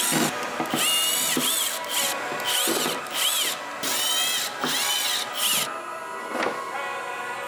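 Cordless drill backing out the screws that hold a wooden workpiece down, in a series of short trigger pulls. The motor whine rises in pitch and falls away with each run. The runs stop a little over halfway through.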